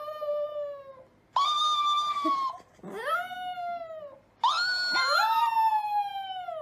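A domestic cat meowing: four long, drawn-out meows, each rising and then falling in pitch, the last one the longest.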